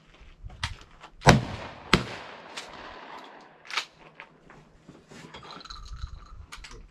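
Shotgun fired twice in quick succession, about two-thirds of a second apart, the first shot the louder, followed by two fainter sharp cracks over the next two seconds.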